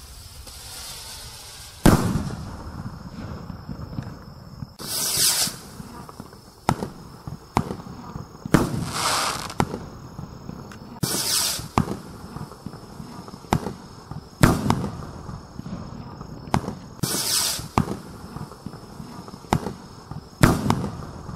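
Consumer firework rockets launching with short whooshes and bursting overhead in a run of about a dozen sharp bangs, with crackling between the reports.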